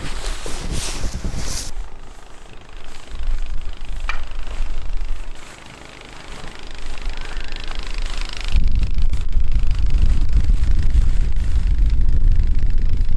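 Wind buffeting the microphone in uneven gusts, with a heavy low rumble that builds about two-thirds of the way in and holds.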